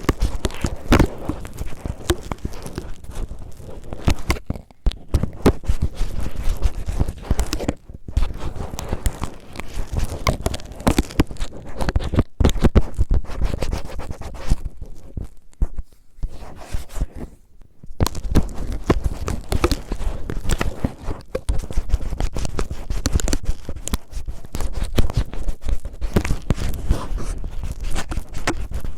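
Cellophane crinkled and rubbed against the microphone in a rough ear-cleaning style: dense, fast crackling, broken by a few brief pauses.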